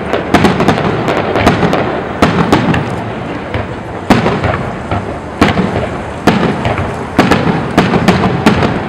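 Fireworks salute: a dense crackle of bursting shells with many sharp bangs. The loudest bangs come about a second apart in the second half.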